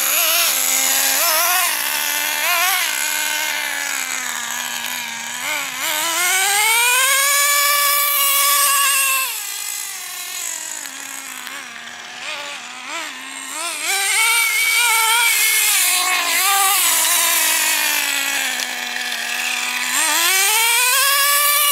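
Nitro RC car's small glow-fuel two-stroke engine running and revving, its pitch rising and falling over and over as the throttle is worked. It is held at high revs about a third of the way in, and again near the end.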